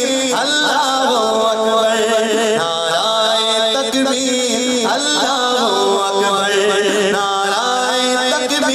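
A man singing a naat solo into a microphone, in long held notes that glide and ornament between pitches.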